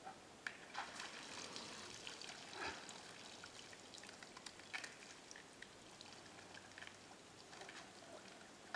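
Faint, irregular scraping and clicking of a black bear's claws on tree bark as it climbs up out of shallow water, with water splashing and dripping. The clicks are densest in the first three seconds and again around the middle.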